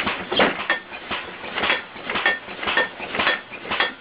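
Air-compressor-powered, computer-controlled bed-shaking rig jolting a wooden bed frame: a rhythmic clanking and banging about twice a second, each hit ringing briefly like metal.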